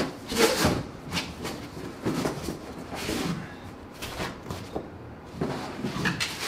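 Cardboard box and white foam packing blocks being handled while a camera is unpacked: irregular rustling, scraping and light knocks.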